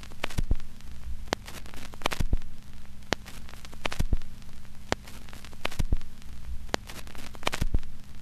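Static crackle: irregular sharp clicks, roughly two a second, over a steady electrical hum and faint hiss.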